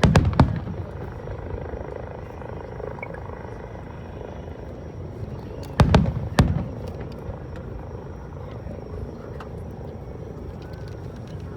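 Aerial fireworks shells bursting with deep booms, two bangs about half a second apart at the start and another such pair about six seconds in, over a crowd's steady murmur.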